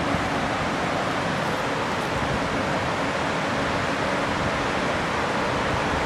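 Whitewater rapids of a fast mountain river rushing: a steady, even roar of water.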